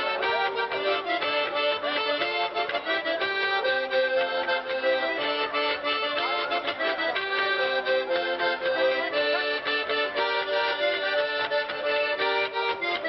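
Traditional folk dance music with a fast, busy melody over a steady beat, played over a loudspeaker.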